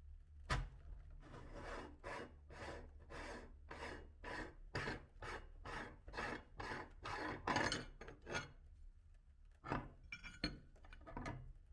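Meat grinder working through Orbeez, a rasping stroke repeating about two to three times a second for several seconds, with a sharp click just before it starts and a few clicks near the end.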